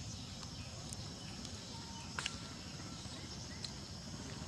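Quiet outdoor ambience: a steady low background rumble with a few faint clicks and one short high chirp about two seconds in.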